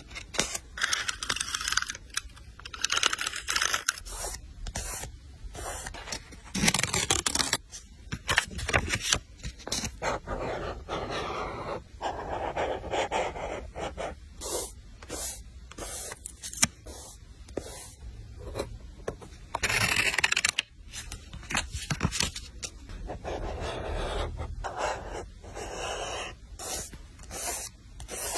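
Close-up paper and stationery handling while decorating a journal page: repeated scraping and rustling of paper with many small clicks and taps, and stretches of rougher scratchy noise like stickers or tape being peeled and pressed down.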